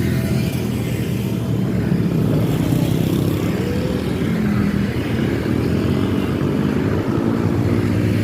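Vehicle engine and road noise: a steady low rumble without horn notes.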